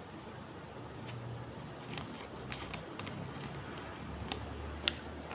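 Faint chewing of soft bread with a few small clicks, then a sharper click near the end as a plastic soft-drink bottle is taken hold of.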